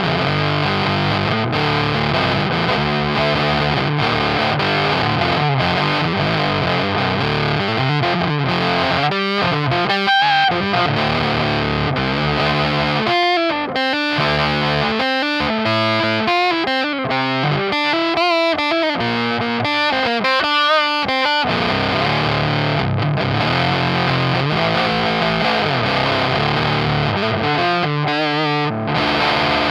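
Electric guitar played through a Dolamo D-2 fuzz pedal, heavily fuzzed. It plays sustained chords, then quicker single-note riffing with short breaks through the middle, then chords again.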